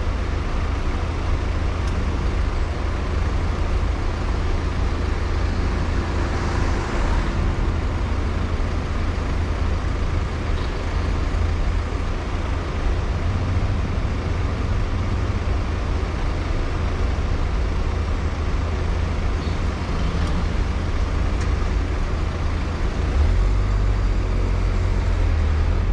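Car driving along a road: steady low engine and tyre rumble with traffic noise. A brief hiss comes about six seconds in, and the low rumble grows stronger near the end.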